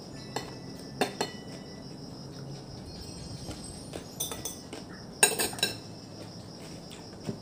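Cutlery clicking and clinking against a dish during a meal, in a few scattered strikes with the loudest cluster about five seconds in. Crickets chirp steadily underneath.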